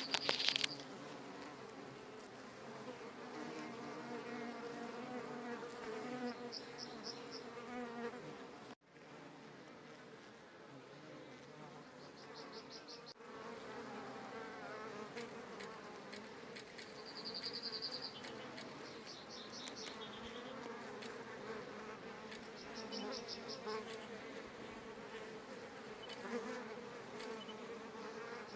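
Steady buzzing of insects, with a few short, high, pulsing trills over it. The sound briefly cuts out about nine seconds in.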